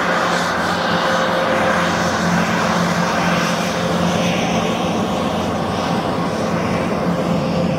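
Formation of four Bell H-1 helicopters, two AH-1Z Vipers and two UH-1Y Venoms, in flight: a steady mix of twin-turbine whine and rotor noise, with a constant hum.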